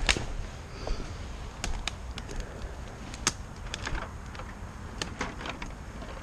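Twigs and dry brush snapping and crackling as someone pushes through undergrowth beside a wooden fence, with a sharp knock at the start and scattered clicks and snaps after it.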